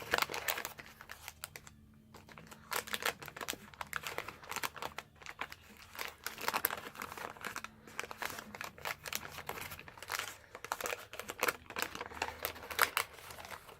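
Trading cards and their paper packaging being handled: rustling, crinkling and small clicks, many short irregular strokes close to the microphone.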